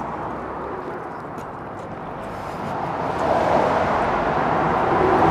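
Road traffic noise: the rushing of a passing vehicle swells up about halfway through and stays loud, with a few faint clicks.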